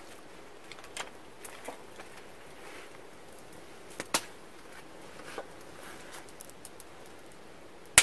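Open wood fire of small twigs crackling in a grate: scattered sharp pops and clicks over a low hiss, the loudest snap about four seconds in, with light scraping of a stick being poked in the fire.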